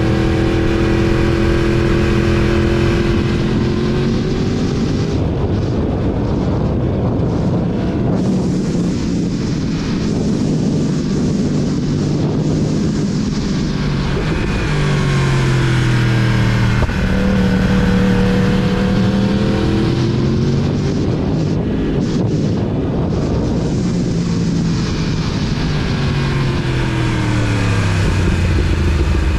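2019 Yamaha R1's crossplane inline-four engine running at road speed under steady wind rush. Its pitch rises as it accelerates about halfway through and falls as it slows near the end.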